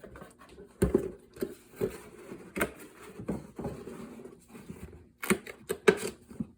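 A hard carrying case and its packaging being handled and opened: a series of sharp clicks and knocks, several in quick succession near the end, with rustling in between.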